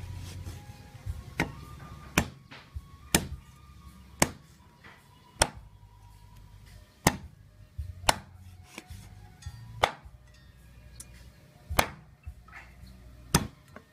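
Steel cleaver chopping a whole fish into pieces on a wooden chopping block: about ten sharp chops, unevenly spaced roughly a second or so apart.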